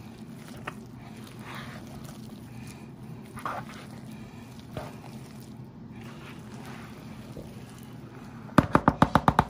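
A metal spoon folding a thick rice, broccoli and cheese-sauce mixture in a plastic bowl: faint, soft squishing and scraping over a steady low hum. Near the end comes a quick run of about ten sharp knocks, the spoon working against the bowl.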